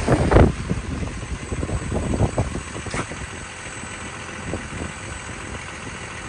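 Hyundai R220LC-9A excavator's diesel engine idling steadily, with some louder irregular rumbling in the first half-second.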